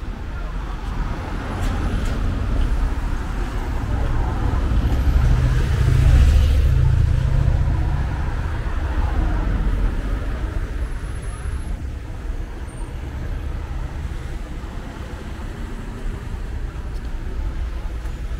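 Road traffic passing along a city street: car engines and tyre noise, with one louder vehicle's low rumble swelling and fading about five to eight seconds in.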